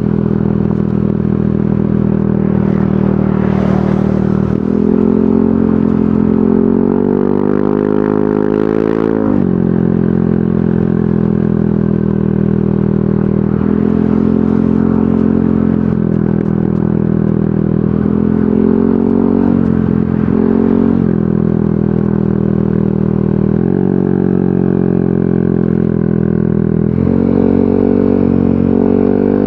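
Yamaha NMAX 155 scooter's single-cylinder engine through a VMAX Onyx aftermarket muffler, running steadily. The engine note climbs for several seconds about five seconds in, then drops back, and rises and falls a few more times with the throttle.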